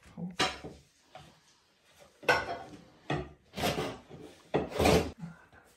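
Skirting board being prised and scraped off a wall with a metal bar: a series of about five rough scraping strokes, the loudest about two seconds in and near the end.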